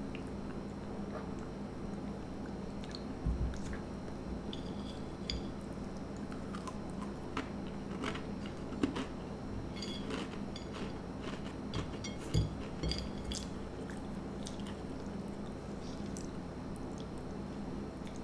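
Teddy Grahams, small crunchy honey graham crackers, being bitten and chewed, with small clicks as the crackers are picked off a china plate. Two low knocks stand out, one about three seconds in and one about twelve seconds in. A steady low hum runs underneath.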